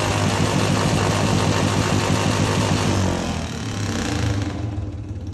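2004 Royal Enfield Bullet's single-cylinder engine running loud through a Mahindra tractor silencer, then dropping back sharply about three seconds in as the throttle closes, with a brief blip a little after four seconds before it settles toward idle.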